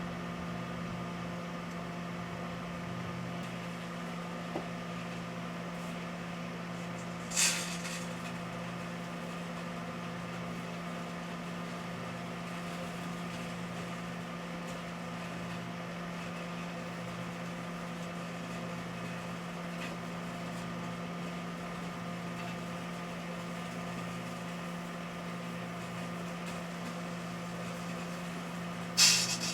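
Microwave oven running with quince fruit inside, giving a steady electrical hum. Two brief sharp pops break through it, one about seven seconds in and a louder one near the end.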